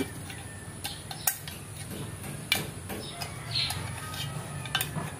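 Metal scissors clicking and scraping against a frying pan's plastic handle and pan body, used as a makeshift screwdriver to fasten the handle on: a few sharp, scattered clicks and a short scrape, over a steady low hum.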